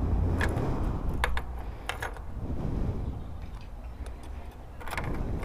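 Light clicks and clinks from small parts, such as a bulb and its socket, being handled. There are a few scattered ticks, with a low rumble of handling noise underneath.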